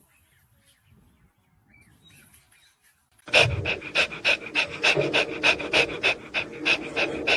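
A puppy panting fast with its mouth right at the microphone, about three to four quick breaths a second. It starts suddenly a little over three seconds in, after a stretch of near quiet.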